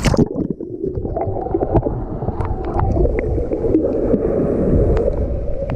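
A small camera plunges into the sea with a splash, then underwater sound: a muffled, dull rush and gurgling of water with scattered small clicks and ticks.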